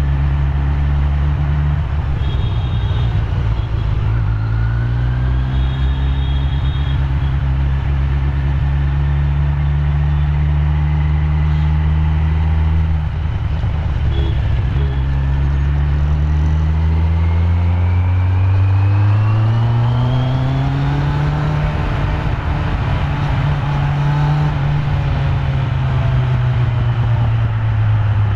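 Kawasaki Z900's inline-four engine through its stock exhaust, under way: its note climbs in steps near the start, holds steady, dips about halfway, then climbs again and eases off near the end.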